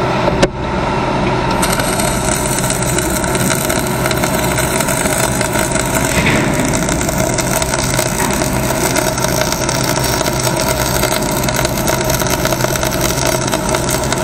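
Steady machinery running, a constant hum with a dense hiss over it that thickens about a second and a half in, and a single sharp click just after the start.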